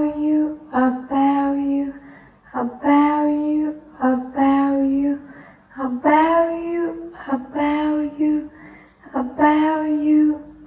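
A single voice repeating the two-beat phrase "about you" over and over in a sing-song, held tone, about six times, with a short pause between each.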